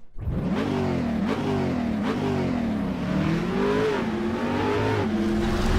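KTM Duke 125's single-cylinder four-stroke engine revving, its pitch rising and falling again and again.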